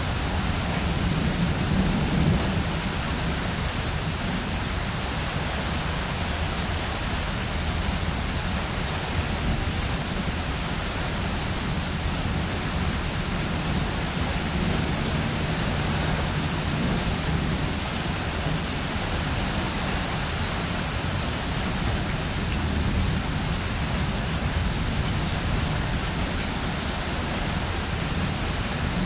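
Steady rain falling during a thunderstorm, with low rolling thunder swelling a few times: near the start, around the middle and again later.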